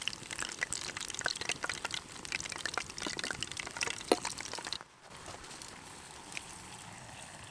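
Battered onion rings frying in hot oil in a pan, sizzling with a dense crackle of small pops. About five seconds in it drops abruptly to a quieter, steady sizzle.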